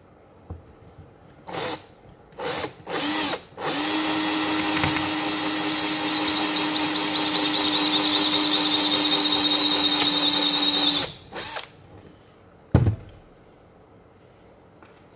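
Cordless Makita drill given a few short trigger blips, then run at a steady speed for about seven seconds with a high whine as its bit drills out the spring-and-ball check valve seat inside a foam gun's adapter fitting. It stops, blips once more, and a single knock follows.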